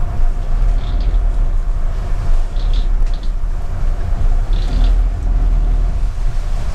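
Low, steady rumble of the yacht's Volvo Penta IPS diesel engines idling, heard from inside the cabin. A few brief high squeaks come through over it.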